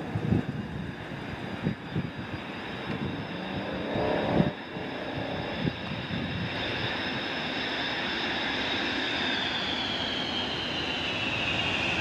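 Jet engines of a Boeing KC-135R Stratotanker on approach, its four CFM56 (F108) turbofans, a steady rumble growing slowly louder with a high engine whine that falls in pitch over the last few seconds. A few short low thumps sound in the first five seconds.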